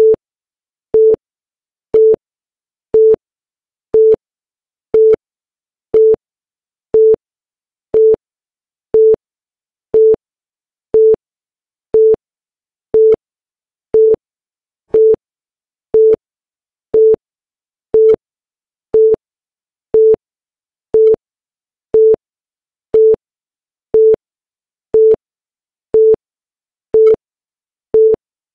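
Short electronic beep, one steady fairly low tone, repeating exactly once a second: a timing signal marking each second of a running chronometer.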